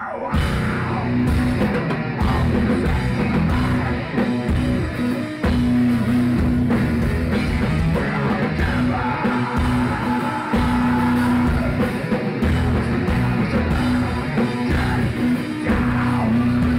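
Heavy metal band playing live: guitar, drum kit and singing together, loud and continuous.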